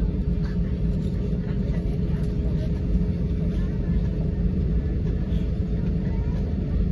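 Cabin noise of an Airbus A320 taxiing: a steady low rumble from the engines at idle and the wheels on the taxiway, with a steady hum over it.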